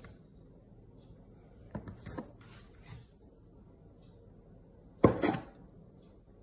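Stainless steel bench scraper chopping down through bread dough onto the countertop: a few soft knocks about two seconds in, then a louder knock with a short scrape about five seconds in.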